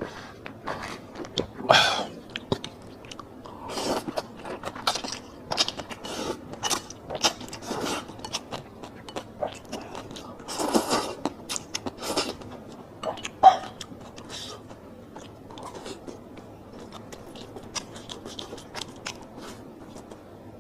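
A person eating close to the microphone, chewing and biting rice noodles dressed with lard and xiaolongbao soup dumplings: irregular mouth clicks and short bursts, the loudest about two seconds in and again past the middle.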